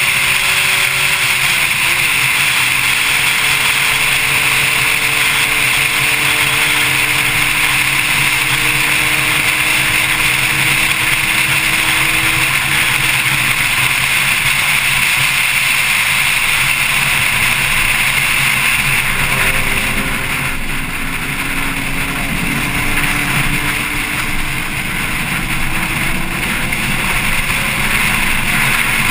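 Porsche 911 Carrera S flat-six at speed, heard from a camera on the car's front lid over a steady rush of wind and road noise. The engine note drops about a second and a half in as it shifts up, climbs slowly, fades out for a while past the middle while the car eases off, then climbs again near the end.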